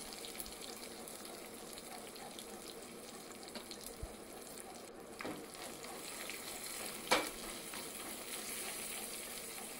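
Oil sizzling steadily in a small pan as a tempering of peanuts, chana and urad dal and red and green chillies fries. Two brief knocks come a little after halfway and again about two seconds later, the second louder.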